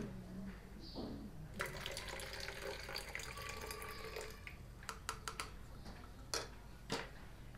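Vinegar poured from a measuring cup into warm water, a steady splashing pour lasting about three seconds, followed by a few light clicks.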